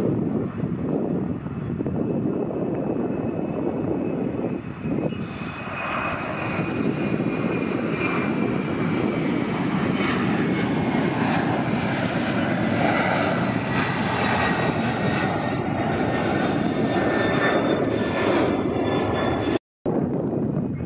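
Twin jet engines of a FedEx Boeing 767 freighter at takeoff power, climbing out: a dense, steady jet noise with high whining fan tones that slowly drop in pitch. The noise swells about five seconds in, and the sound cuts out for a moment near the end.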